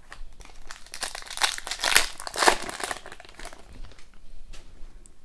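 Crinkling and rustling as hockey cards and their foil pack wrapper are handled, with a dense run of crackles between about one and three seconds in, then lighter rustling.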